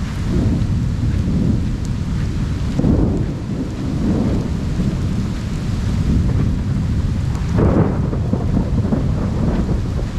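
Heavy monsoon rain with thunder rumbling continuously, swelling louder about three seconds in and again near eight seconds.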